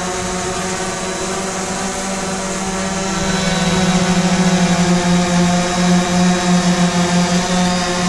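Three DJI quadcopters, a Phantom 4 Pro Plus, a Mavic Air and an Air 2S, hovering together, their propellers making a steady, layered hum. About three seconds in the hum grows louder and takes on a fast pulsing beat, with the Phantom 4 Pro Plus nearest, which is fitted with the louder first-generation propellers.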